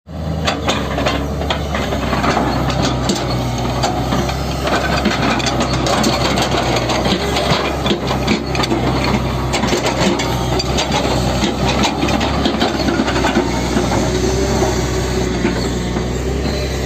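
Heavy road-construction machine's engine running steadily, with continuous rattling and scraping of machinery and material.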